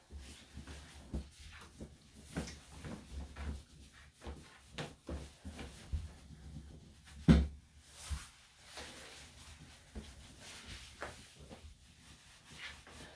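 Scattered light knocks and clatter of handling and equipment, with one sharp, loud thump about seven seconds in.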